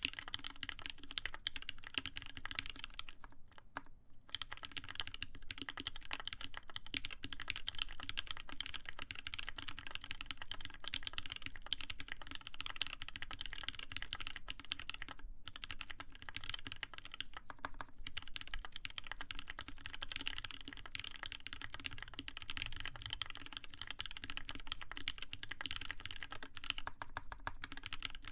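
Continuous typing on a TGR Alice mechanical keyboard with lubed Cherry MX Black linear switches mounted in a full copper plate: a dense run of keystrokes, with a short pause about four seconds in and another briefly around fifteen seconds.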